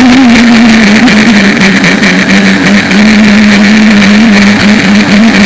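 Aquacraft SV27 RC speedboat's brushless electric motor and two-blade propeller running at speed as a steady hum with small wobbles in pitch, over a hiss of water and wind. It is picked up loud and close by a small camera mounted on the hull.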